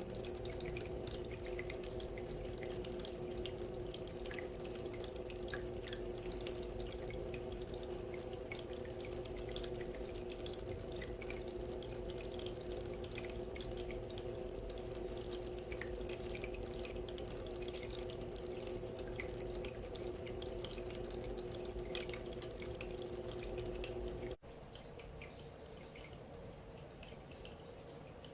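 Small decorative water fountain trickling and dripping steadily, with a low hum under the water. Near the end the sound drops suddenly: the hum mostly goes, and a quieter trickle is left.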